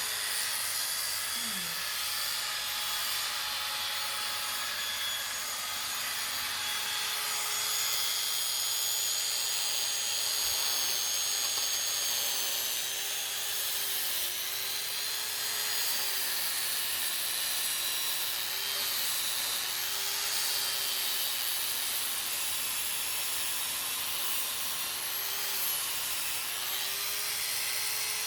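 Electric sander running against wood: a steady sanding hiss over a motor whine that wavers slightly in pitch.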